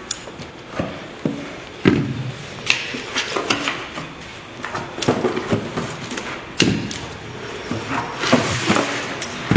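20 Ah electric-scooter batteries in plastic cases being lifted out of a cardboard box and set down on a tiled floor: cardboard rustling with a few irregular hard knocks and thumps as each battery is put down.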